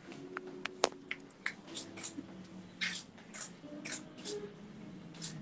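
Birthday candles being lit with a lighter: a few sharp clicks within the first second, then a run of short hissing spurts, with low voices murmuring underneath.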